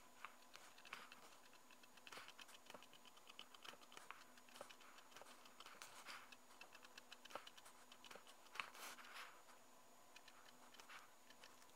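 Faint scratching of a mechanical pencil's lead on paper: many short, quick strokes as small brick outlines are drawn.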